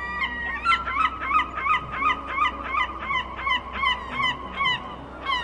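A seagull calling in a rapid, evenly spaced run of repeated calls, about three a second.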